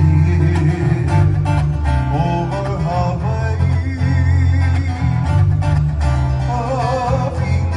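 Music: a song carried by plucked acoustic guitar over a full, steady bass, with a wavering melody line on top.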